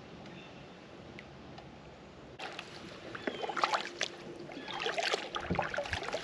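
Water splashing and knocking around a kayak: faint at first, then from about two seconds in a run of short splashes and knocks with a low thump near the end.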